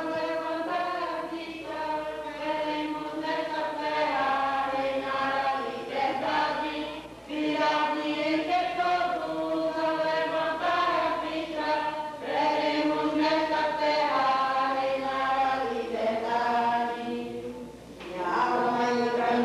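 A group of voices singing a song together, in phrases with brief pauses between them.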